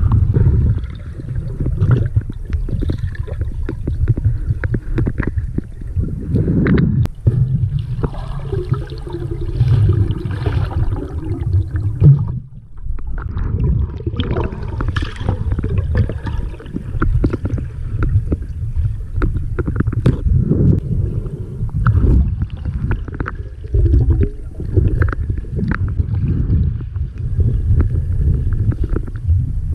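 Water moving around a submerged camera: a low, muffled rumble with many scattered clicks, and one sharp louder knock about twelve seconds in.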